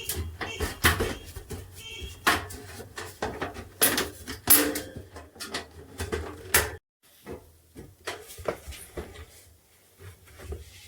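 Irregular clicks, knocks and light metallic clatter of small parts being handled, with a few short squeaks in the first two seconds; the sound cuts out briefly about seven seconds in.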